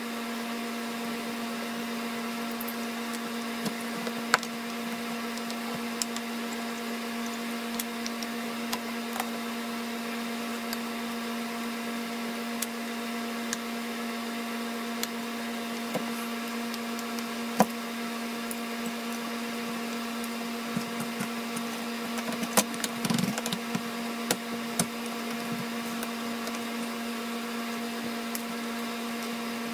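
Scattered sharp clicks and small knocks of a screwdriver, screws and loose metal-and-wood strips being handled while a paper cutter's base is taken apart, with a short run of clatters a little past two-thirds through. A steady low hum runs under it all.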